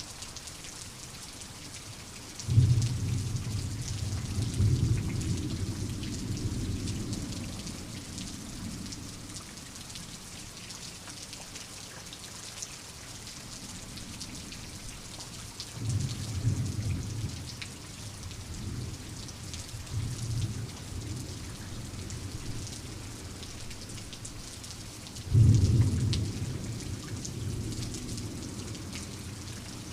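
Steady rain with thunder: a sudden low peal about two seconds in rumbles on for several seconds, a softer rumble comes midway, and another sudden peal comes near the end.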